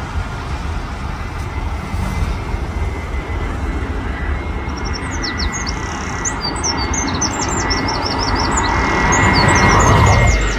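Jet aircraft engine noise, a broad roar with a steady thin whine, slowly growing louder. A bird chirps in quick high repeated notes over it from about halfway through.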